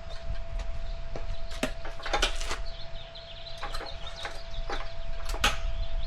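Tire levers and hands working a dirt bike tire bead onto a rim: irregular clicks, knocks and scrapes, with a short squeak about three and a half seconds in.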